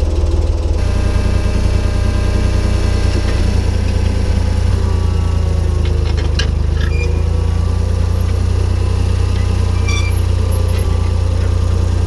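Ford 4000 farm tractor engine running steadily under load while pulling a disc harrow, with a few light clicks and rattles.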